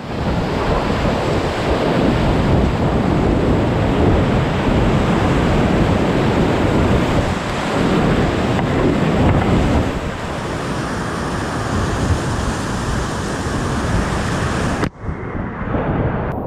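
Whitewater rapids rushing and splashing around a kayak, heard from the boat with spray and water hitting the microphone. The sound cuts off suddenly near the end and comes back as quieter moving water.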